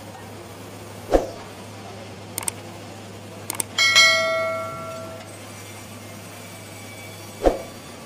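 Steel log-handling gear on a sawmill log carriage: a loud metal clang about halfway through that rings on for a second or so, with a heavy thud about a second in and another near the end and a few light clicks, over a steady machinery hum.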